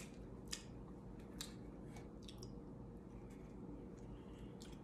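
Faint chewing with a few soft, irregular wet mouth clicks and smacks, the sharpest about half a second in, over a low steady hum.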